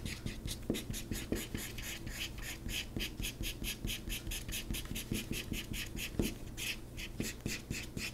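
Felt chisel tip of a Prismacolor blender marker scrubbing on paper in quick, even back-and-forth strokes, several a second, along the edge of a card template.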